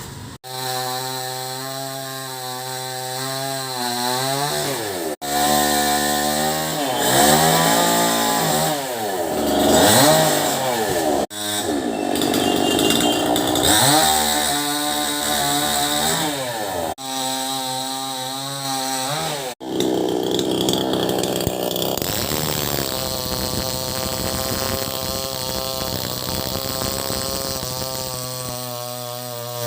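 Chainsaw running and cutting, its engine pitch rising and falling over and over as it revs, with several sudden breaks.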